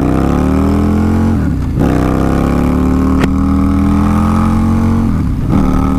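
Harley-Davidson V-Rod's liquid-cooled Revolution V-twin accelerating hard through the gears. The engine note climbs, drops at an upshift about a second and a half in, climbs again, and drops at a second upshift near the end. One sharp click comes a little past halfway.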